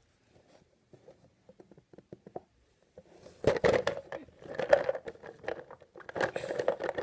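Clear plastic tub handled close to the microphone: a few faint taps, then from about three seconds in a run of crinkling, scraping and clattering plastic.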